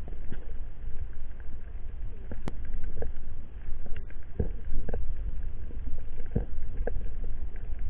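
Underwater sound picked up by a camera in its waterproof housing: a steady low rumble of water with scattered short clicks and pops.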